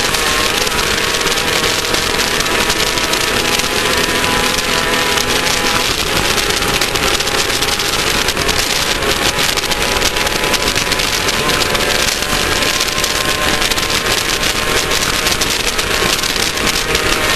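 Class 1600 off-road race buggy's air-cooled Volkswagen 1600 engine running steadily under load, under a constant dense noise of the car running over dirt.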